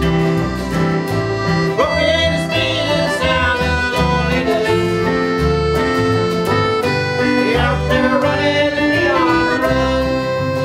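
Folk band playing an instrumental passage without singing: guitar and a steady pulsing bass under a lead melody line.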